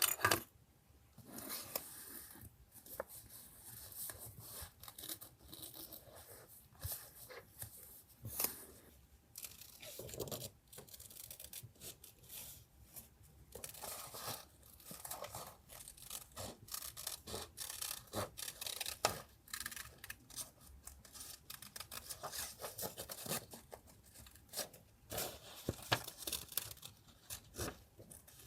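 Paper being handled, torn and rubbed for a journal collage, heard as a run of short, irregular crinkly strokes with a few sharper snaps.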